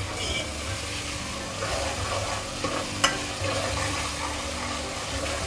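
Onion and spice masala sizzling as it fries in oil in an aluminium pot, stirred and scraped with a steel ladle, with one sharp clink of the ladle on the pot about three seconds in.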